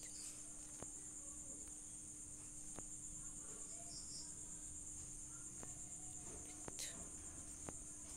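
Steady high-pitched chirring of insects, like crickets, with a faint low steady hum beneath it.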